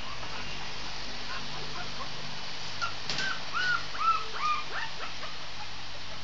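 Shih tzu puppy giving a quick run of about half a dozen short, high whimpering cries, each rising and falling in pitch, starting about three seconds in.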